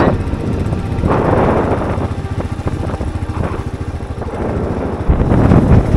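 Motorcycle engine running while riding, getting louder near the end.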